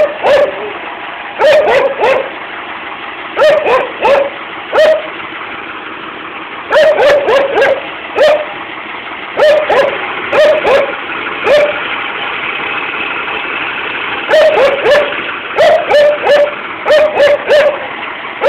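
A dog barking repeatedly in quick runs of several barks, with short pauses between runs. Under the barks is the steady running of a Fiatagri 140-90 tractor's diesel engine.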